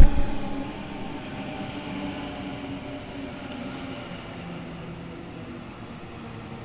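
Sydney Trains electric passenger train moving away along the platform, its rumble and motor hum slowly fading. A loud knock comes right at the start.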